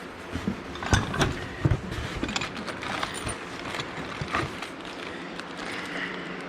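Steady hum of a small shop fan, with a cluster of sharp clicks and knocks about a second in and a few lighter clicks after.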